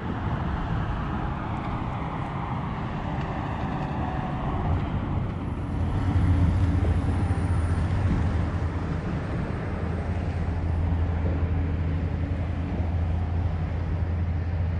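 Road traffic on the highway bridge: a steady rumble of passing vehicles, with a low hum that grows louder about five seconds in and holds.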